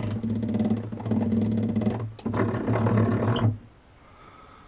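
A machine running in two bursts, the first about two seconds long and the second about a second and a half, each with a steady low hum.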